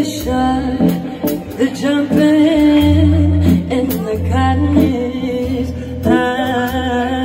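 A woman singing live into a microphone with a band, backed by keyboard and a drum kit, all amplified through a PA.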